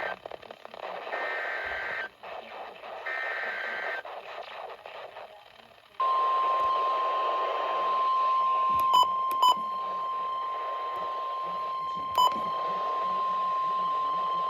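Emergency Alert System weather-radio broadcast over a hissing radio signal. Two short bursts of warbling two-tone data sound in the first four seconds, the tail of the alert's digital header. From about six seconds a steady single-pitch warning alarm tone, the weather radio's 1050 Hz alert tone, holds to the end, broken by three sharp clicks.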